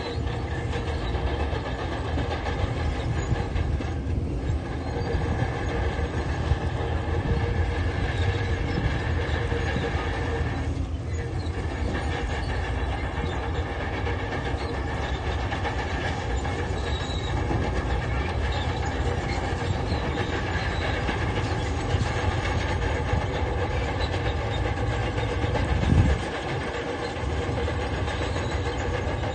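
Diesel engine of a crawler machine running steadily, with the clatter of its steel tracks, and one louder bang near the end.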